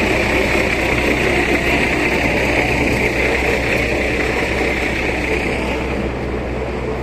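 Loud, steady mechanical drone of a running engine or machine, with a constant low hum under a hissing upper tone, easing off slightly near the end.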